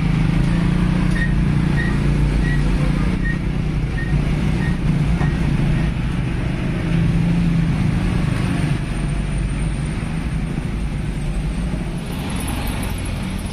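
Heavy dump truck's diesel engine running close by as it crosses the railway tracks, followed by other road traffic. A faint short high beep repeats about every two-thirds of a second and stops about five seconds in.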